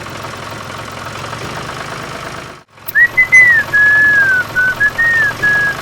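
A steady low engine hum that cuts off about two and a half seconds in, followed by a person whistling a short wavering tune in several phrases.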